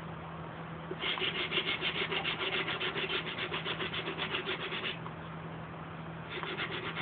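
Sanding block with about 120-grit sandpaper rubbed by hand over hardened flowable putty body filler: a run of rapid back-and-forth strokes, several a second, starting about a second in and lasting about four seconds, then a short pause and another run near the end.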